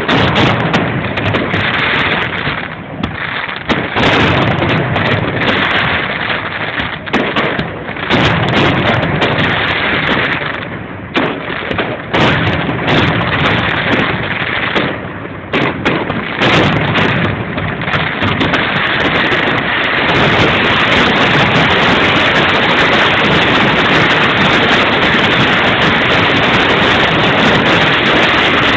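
Fireworks exploding in quick, overlapping succession, loud and dense, with short lulls between volleys; about two-thirds of the way in the bursts merge into one unbroken din with no gaps.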